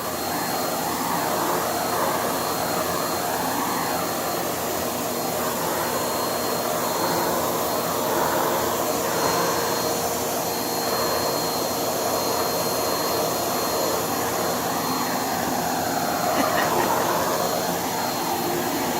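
Vacuum cleaner running continuously, with a steady high whine over a rush of air that wavers up and down in pitch as the nozzle is moved over the cat's fur.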